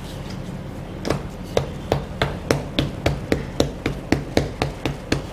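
Wooden rolling pin pounding a folded block of puff pastry dough on a wooden table: about fifteen quick, sharp knocks at roughly four a second, starting about a second in. The pounding flattens the cold, butter-layered dough so that it is easier to roll.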